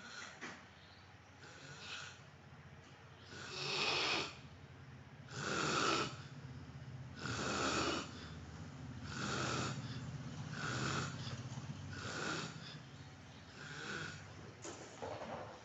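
A man snoring in his sleep: a rasping snore about every one and a half to two seconds, the loudest ones in the first half.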